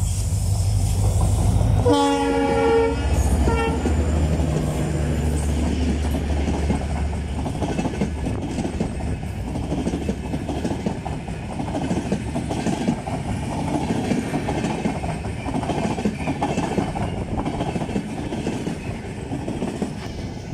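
EMD WDP4B diesel-electric locomotive running past with a low engine rumble, then sounding its horn about two seconds in: one long blast and a short second toot. Passenger coaches follow, with a steady rumble of wheels on rail and clickety-clack over the joints.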